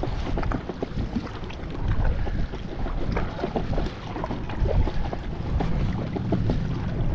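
Kayak paddle strokes splashing and dripping water from the blades, with wind buffeting the microphone.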